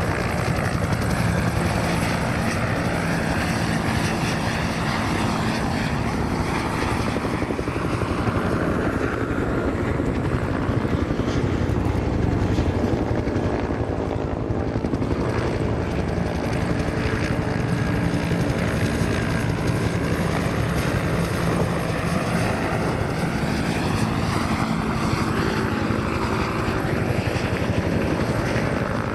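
A formation of military helicopters flying past, their rotors beating steadily and loudly, with several overlapping engine tones that glide up and down as aircraft pass.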